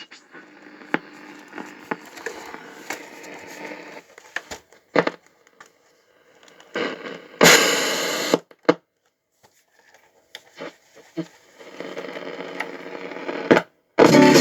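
A radio receiving static: stretches of hiss and crackle that cut in and out, broken by clicks and a loud burst of noise about seven and a half seconds in.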